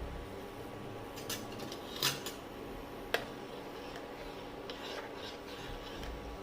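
Kitchen utensil handling: a few short scrapes and one sharp click, over a steady hum.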